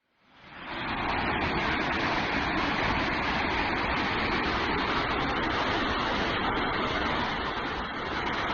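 Steady rush of falling and flowing water from a waterfall and its stream, fading in over the first second.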